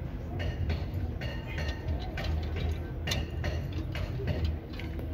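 Irregular light metallic clicks and clinks of hand tools and parts being handled at a car's front suspension and brake caliper, over a steady low hum.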